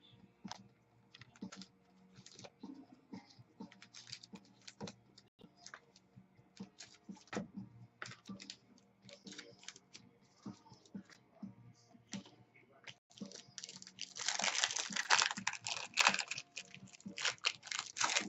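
Trading cards and their plastic holders being handled: irregular small clicks and taps, with a louder rustling stretch about three-quarters of the way through.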